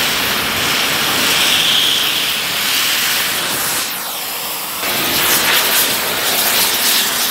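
QCC 4900 Series oxy-fuel powder cutting torch running, with iron powder fed into its oxygen jet as it cuts through stainless steel: a loud, steady hissing roar. The sound changes briefly about four seconds in.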